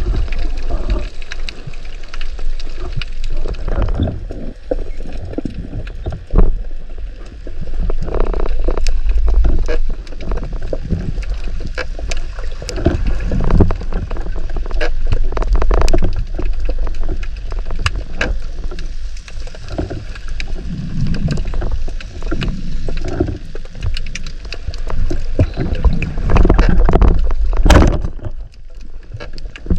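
Water sloshing and gurgling close to the microphone, in irregular swells with a low rumble and many sharp clicks and knocks.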